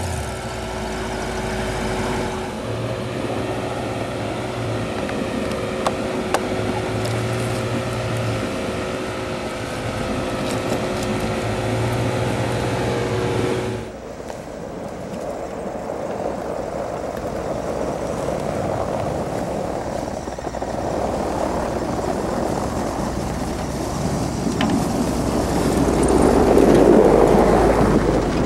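Off-road 4x4 engine running and revving in three short surges, with a steady whine over it. After a sudden cut, engine noise under load builds to its loudest near the end.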